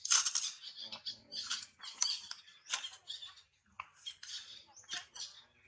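A quick, irregular run of short, high-pitched animal squeaks and chirps, about two or three a second, loudest right at the start.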